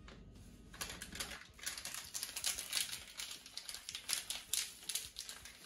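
Quick, irregular clicking and tapping from kitchen utensils and containers being handled while dry coating ingredients are mixed.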